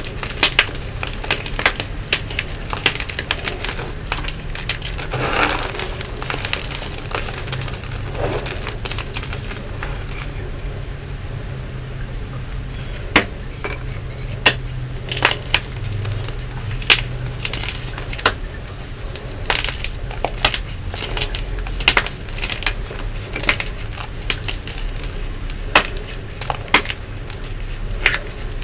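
Crunchy Nexo blocks being squeezed and broken apart in bare hands: a run of sharp crackles and snaps as the pieces crumble.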